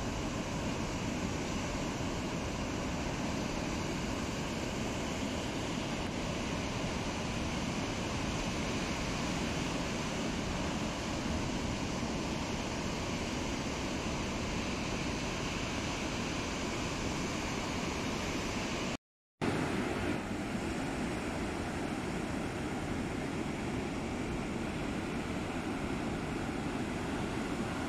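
Heavy surf breaking on a beach: a steady, even rush of large waves. The sound cuts out for a moment about two-thirds of the way through.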